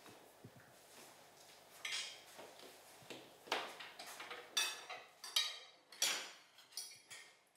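Spoons clinking and scraping against plates and a serving dish, a string of sharp clinks, several of them ringing, from about two seconds in.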